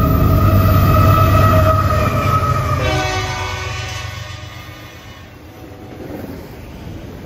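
Union Pacific GE AC4400CW diesel locomotive sounding its horn over the engine's low rumble as it passes. The horn chord drops in pitch about three seconds in and fades out a couple of seconds later, leaving the quieter rumble of autorack cars rolling by.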